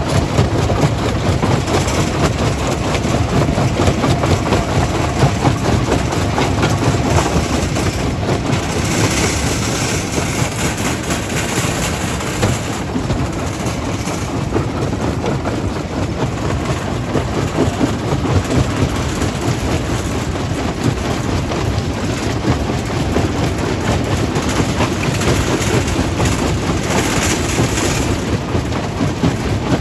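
Stone crushing plant machinery running: a steady, loud mechanical rumble with dense, continuous rattling. The rattle grows brighter and harsher for a few seconds about nine seconds in, and again near the end.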